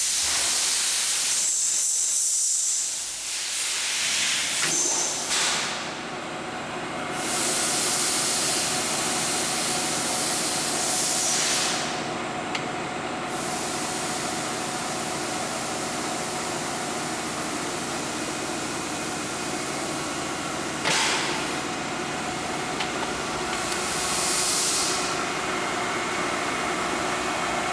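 Steady machine hum under a loud hiss that comes and goes several times.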